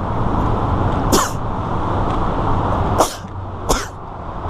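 Steady road and engine noise inside a moving car, broken by three short, sharp bursts that fall in pitch: one about a second in and two close together around three seconds in.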